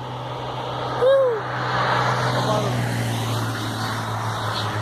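A motor vehicle going by, its noise swelling after about a second and easing off, over a steady low hum. A brief rising-then-falling tone sounds about a second in.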